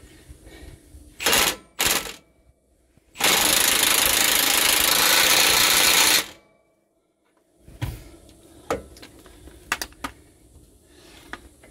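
Power impact wrench driving a shock absorber mounting bolt: two short blips, then a steady run of about three seconds until the bolt is tight. This is followed by a few light clicks of tools being handled.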